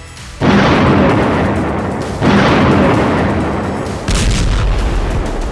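Three heavy explosion booms, each starting suddenly and dying away in a long rumble, roughly two seconds apart; the last has the deepest low rumble.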